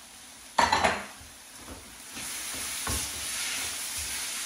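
A chicken curry sizzling in a hot pan as it is stirred with a spoon. There is a brief loud scrape or burst about half a second in, and the sizzle gets louder and steadier after about two seconds.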